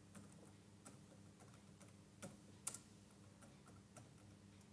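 Faint typing on a computer keyboard: scattered single keystrokes, with one louder click a little over halfway through.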